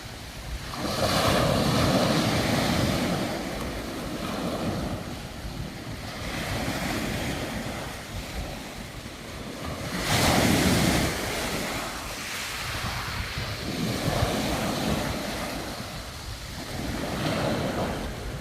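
Sea waves washing onto the shore, the rush of water swelling and ebbing, with surges about a second in, about ten seconds in and near the end. Wind buffets the microphone.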